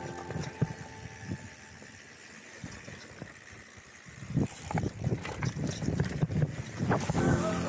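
Mountain bike being ridden on a dirt trail: quiet tyre and riding noise at first, then, from about four seconds in, a run of rattles and knocks as the bike clatters over rough ground.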